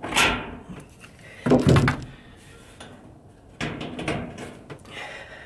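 Knocks and scrapes of a hand tool and hands working on a metal duct pipe fastened against a wooden joist, in three short bursts: at the start, about a second and a half in, and near the end.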